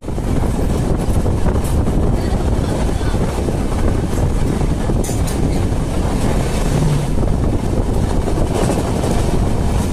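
Wind rushing over the microphone with the steady rumble of a moving passenger train, heard from an open coach door.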